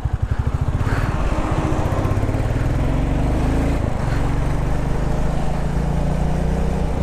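Royal Enfield Classic 350's single-cylinder engine pulling away: a slow, distinct thump at first that quickens and rises in pitch over the first few seconds, breaks briefly about four seconds in, then runs steadily under wind noise.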